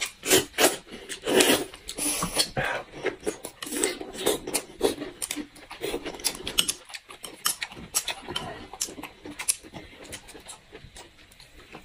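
Close-miked eating sounds: wet chewing, smacking and slurping, with many short sharp clicks, getting sparser near the end.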